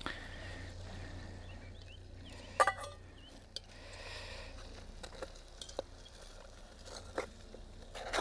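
Occasional sharp taps and clicks of a utensil against a metal billy can, over a faint steady low hum.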